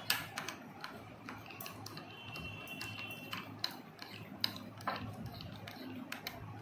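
Metal spoon clicking and scraping against a small glass bowl in irregular ticks while stirring white glue and a detergent-salt-water activator into slime.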